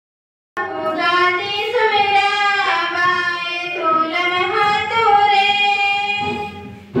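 Young girls' voices singing a song together, with long held notes that glide between pitches. The singing starts about half a second in and fades out near the end.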